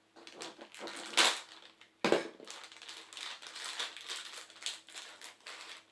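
Clear plastic parts bag crinkling and rustling as it is handled, with a sharp knock on the table about two seconds in.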